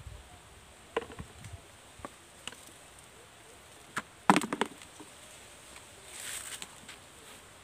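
A few scattered sharp clicks and knocks, the loudest a quick clatter about four seconds in, followed by a brief high hiss.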